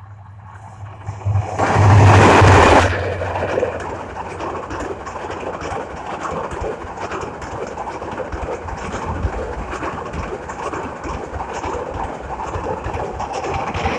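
A diesel-hauled passenger train passing close by. The locomotive goes past loudest about two seconds in, then comes a steady clatter and rumble of the coaches' wheels on the rails, easing near the end.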